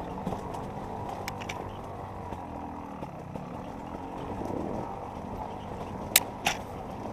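Enduro dirt bike engine running at fairly steady, low revs, with two pairs of sharp knocks, one pair about a second in and another near the end.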